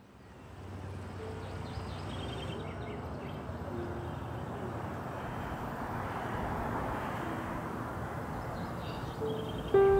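Outdoor ambience fading in: a steady wash of distant traffic with a few faint bird chirps, and a short louder sound just before the end.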